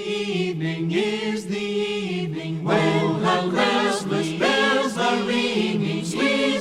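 A mixed choir singing a Christmas song in several-part harmony.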